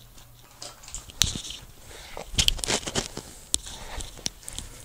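Irregular rustling and scraping with several sharp clicks: handling noise of a microphone snagged on a small toy truck being tugged at.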